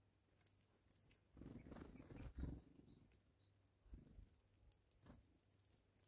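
Small wild birds at a winter feeding table: a high, thin call of several notes stepping down in pitch, heard twice, with faint scattered clicks. A louder rush of noise lasts about a second and a half, starting about a second and a half in.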